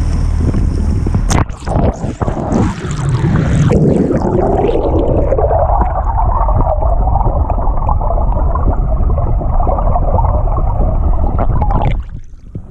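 Muffled underwater sound from an action camera held below the sea surface: water rushing and gurgling, with a boat engine's drone that rises in pitch from about three to six seconds in and then holds steady. There is a sharp splash as the camera goes under a little over a second in, and the sound drops off near the end as it comes back up.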